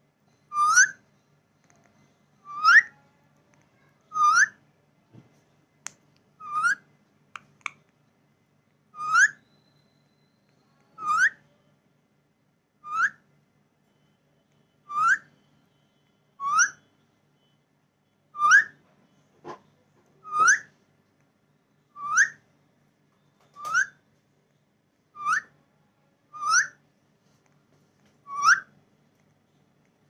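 Alexandrine parakeet giving a short, rising whistled call over and over, about one every two seconds, with a few faint clicks between calls.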